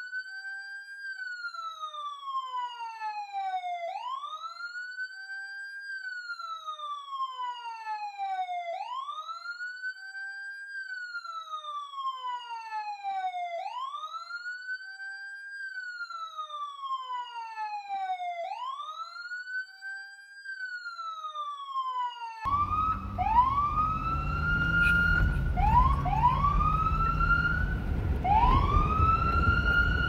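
Police siren on wail, each cycle a quick rise then a slow fall in pitch, repeating about every five seconds. About three-quarters of the way through it changes abruptly: a loud low rumble comes in and the siren rises quickly several times and holds at its top pitch.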